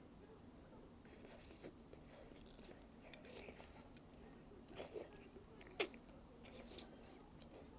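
A person chewing mouthfuls of malatang in soft, irregular bursts, with two sharp clicks about three and six seconds in.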